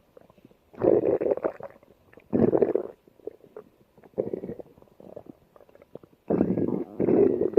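Stomach growling in separate bursts: a loud one about a second in, another around two and a half seconds, a fainter one near four seconds, and a longer loud one from about six seconds on.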